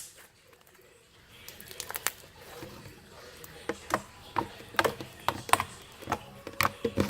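Purple slime being squeezed and stretched by hand, giving a run of sharp clicks and pops that come thicker and louder from about four seconds in.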